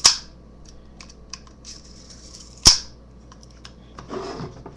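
Plastic clicks from handling an airsoft pistol and its magazine: two sharp loud clicks about two and a half seconds apart, with lighter ticks between them and a brief scratchy rustle near the end.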